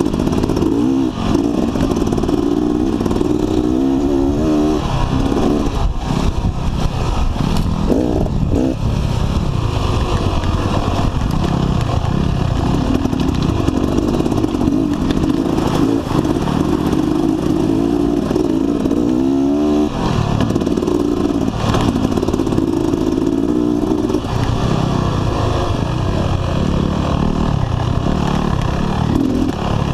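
Dirt bike engine running close under the handlebar-mounted camera while riding a rough trail, its revs rising and falling with the throttle, with knocks and rattles as the bike goes over rocks.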